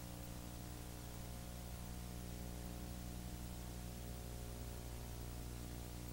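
Faint steady low hum with a stack of even tones, under a background hiss; no bird calls or other events stand out.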